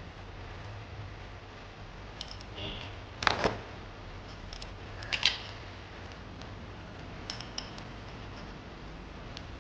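Scattered small clicks and taps of small hard parts or tools, with two louder double clicks, over a steady low hum.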